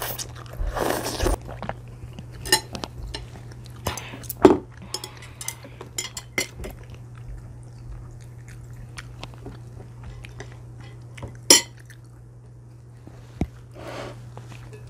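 Close-up eating sounds: noodles slurped and chewed, with sharp clicks and clinks of chopsticks against bowls and plates every few seconds.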